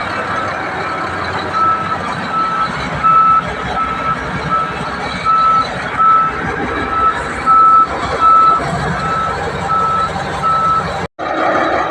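Bulldozer's reverse alarm beeping, a single-pitched beep about one and a half times a second, over the machine's diesel engine running. The beeping starts a second or two in, and all sound cuts out for a split second near the end.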